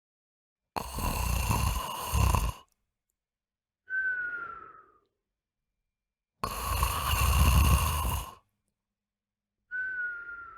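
A dog snoring in a repeating cycle: a loud, rasping snore on the in-breath, then a short whistle on the out-breath that falls in pitch and fades away. The cycle comes twice, with complete silence between the sounds.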